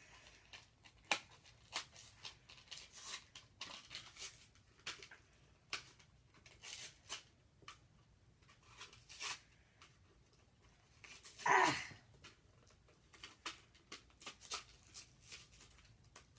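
Hard plastic blister packaging being picked at, crinkled and torn while being forced open, in scattered short clicks and crackles. About two-thirds of the way through comes a louder, short falling grunt.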